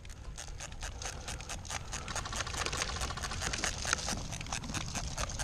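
Airsoft guns firing: a fast, irregular run of sharp clicks that goes on without a break.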